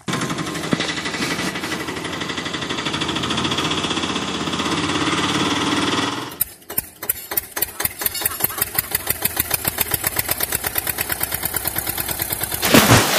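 Tractor engine sound: a dense engine drone for about six seconds, then after a brief drop a steady chugging at about four to five beats a second, ending in a loud rising rev.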